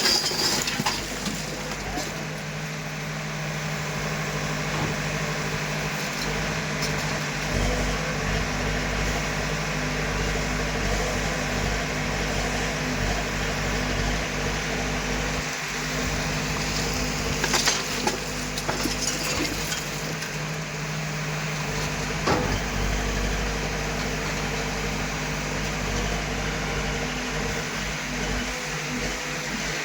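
Diesel engine of heavy earth-moving machinery running steadily at a constant pitch, with a few sharp knocks partway through.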